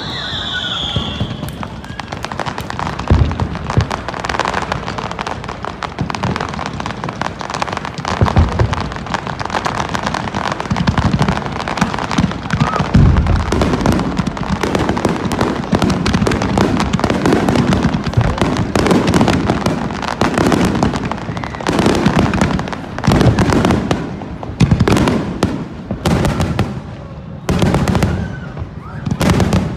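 Aerial fireworks shells bursting in a rapid, near-continuous barrage of booms and crackling, with a falling whistle at the very start. Over the last several seconds the bursts come separately, a second or less apart.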